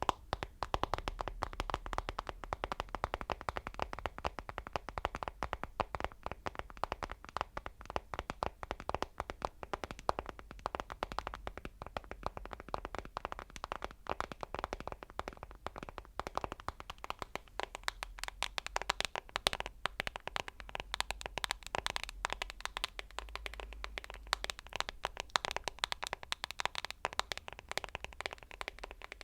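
Fast, continuous ASMR tapping, many crisp taps a second without pause.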